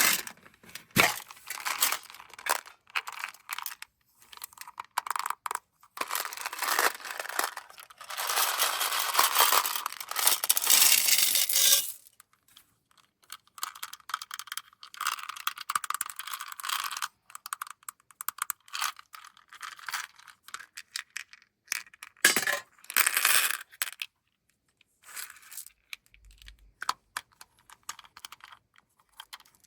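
Candy-coated M&M's pouring out of their packaging and clattering onto a hard surface: a dense rattle of many small hard pieces, heaviest in one long pour in the middle, then scattered clicks as they settle.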